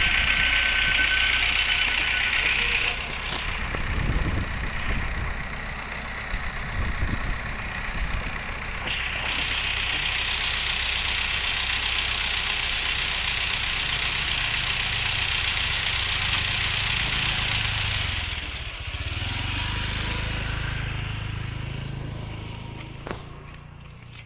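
Heavy engine running steadily, with a high steady whine over a low rumble; the whine drops off about three seconds in, comes back about nine seconds in, and the whole sound dies away over the last few seconds.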